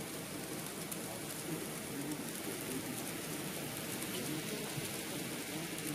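Steady rushing hiss of an N-gauge model steam locomotive and its container wagons rolling along layout track, with faint indistinct voices underneath.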